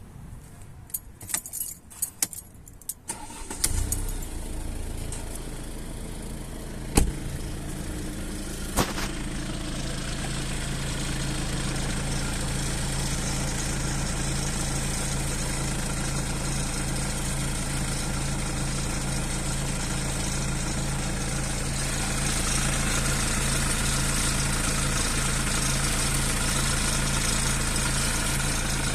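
A few clicks, then a Mercedes OM651 2.1-litre four-cylinder diesel starts about three and a half seconds in and settles into a steady idle. A constant high-pitched whine runs above the idle, growing a little louder near the end.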